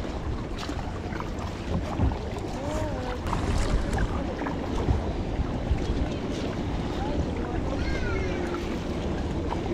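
Kayak paddle strokes splashing in the water, over wind buffeting the microphone.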